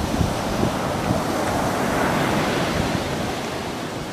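Waves washing in, with wind rumbling on the microphone; the rushing swells about two seconds in and then eases off.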